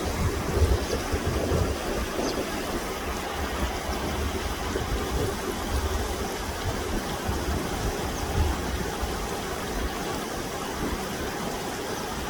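Running water rushing steadily, with an uneven low rumble underneath and a few faint, short bird chirps now and then.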